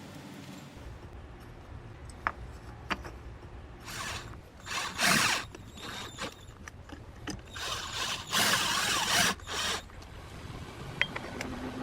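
Hands splicing a doorbell camera's wires onto existing wires: a few sharp clicks, and rasping scrapes of plastic and wire, one short scrape about halfway and a longer one of about a second later on.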